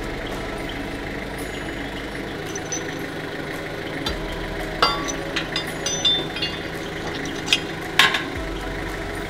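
Metal hand tools clinking against the engine-mount bolts and brackets as the mounts are bolted up, a handful of sharp clinks in the second half over a steady background hum.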